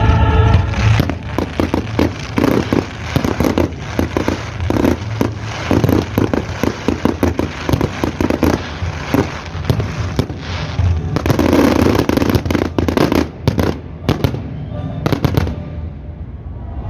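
Fireworks bursting and crackling in quick, dense succession, thickest about two thirds of the way through and thinning out near the end.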